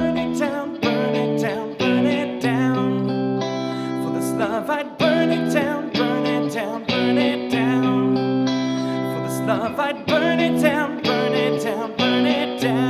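Electric guitar playing through an amplifier, new chords or notes struck about once a second and left to ring, some of them wavering in pitch.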